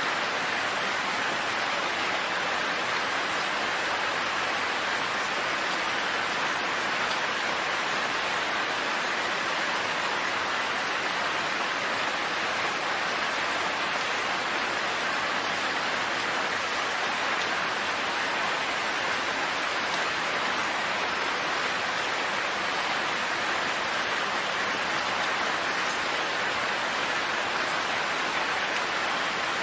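Steady, even rain falling, with no thunder or distinct drops standing out.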